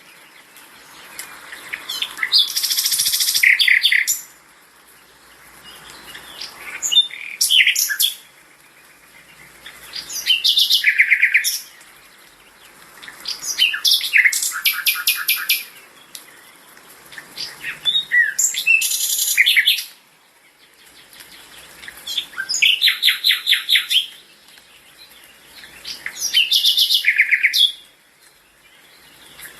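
A songbird singing high, rapid phrases of chirps and trills, about seven phrases, each one to two seconds long, repeated roughly every four seconds with short pauses between.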